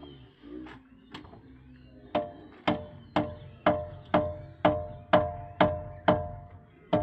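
Steel trowel knocking on a hollow ceramic brick to bed it into the mortar: sharp ringing knocks, about two a second, starting about two seconds in.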